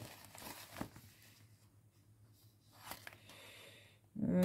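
Faint rustles and a few light clicks of hands handling an embroidery kit's materials. About four seconds in, a woman starts humming a steady, held note, the loudest sound here.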